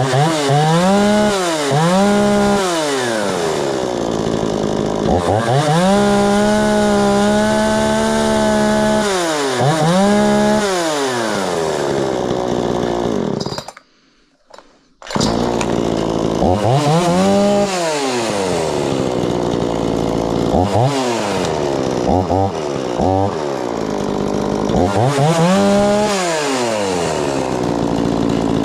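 Craftsman 36cc two-stroke chainsaw, built by Poulan, revved up and down again and again without cutting, the engine pitch rising and falling with each squeeze of the throttle. One rev is held high for about four seconds. The sound cuts out for about a second halfway through, and later come a few quick short blips.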